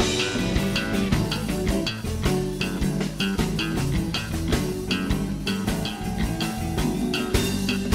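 Live blues band playing a number with a steady beat.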